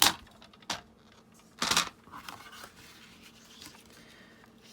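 Paper and craft supplies handled on a work surface: a sharp knock at the start, a lighter click, then a short rustle of paper sliding about two seconds in, with faint handling noise after.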